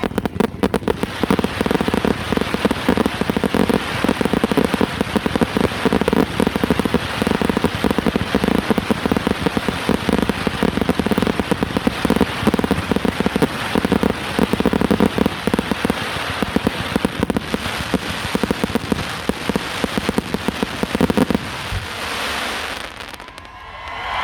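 Aerial fireworks firing a dense, continuous barrage of rapid crackling pops. The barrage dies away about three seconds before the end.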